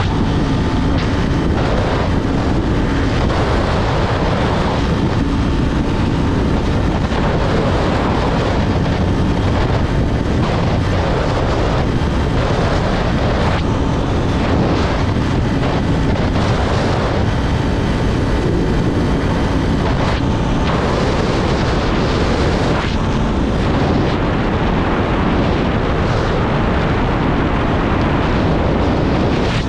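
Kawasaki 400 naked bike riding at speed: a steady engine drone and road noise under heavy wind rushing over the microphone.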